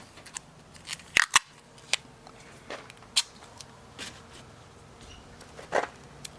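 A hand cutting tool snipping at the metal G channel of an RV storage door: a series of sharp, irregularly spaced clicks, the loudest a quick pair just over a second in.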